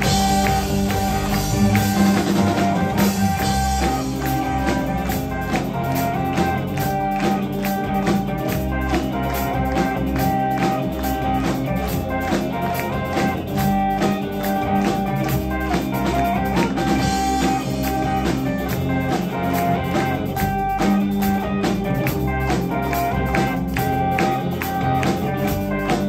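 Rock band playing live, amplified: electric guitars and bass guitar over a steady drum-kit beat, an instrumental passage with no singing.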